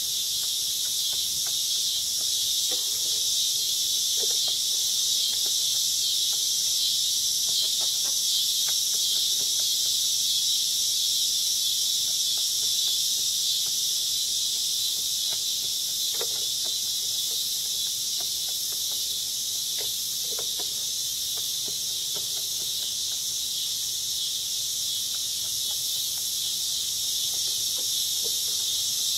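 Steady, loud high-pitched chorus of insects, unbroken throughout. A few faint short animal sounds from the farmyard come through it now and then.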